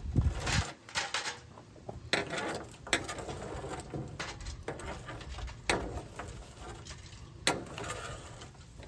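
Small dogwood fire crackling, with irregular sharp pops and clicks, after a low thump in the first half-second.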